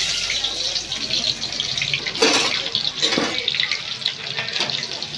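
Water running from a kitchen tap into a sink, as a steady hiss, with two knocks: one a little after two seconds in, one just after three.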